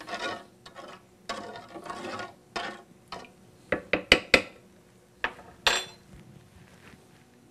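A metal teaspoon stirs and scrapes in a saucepan of liquid seasoning to dissolve it, tapping against the pan several times in quick succession about four seconds in. Near the end comes a single ringing clink as the spoon is laid down on the countertop.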